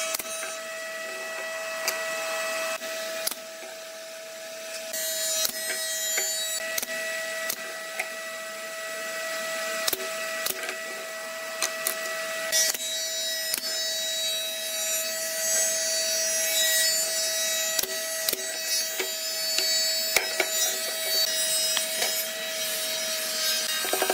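Pneumatic nail gun firing now and then into pine boards, a sharp snap each time, mixed with wooden boards being handled and knocked together. A steady hum runs underneath.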